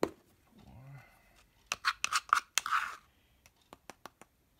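Plastic measuring spoons knocking, clicking and scraping against a measuring cup and bowl while scooping paprika: a sharp knock at the start, a quick run of loud clicks with a short scrape about two seconds in, then a few light ticks.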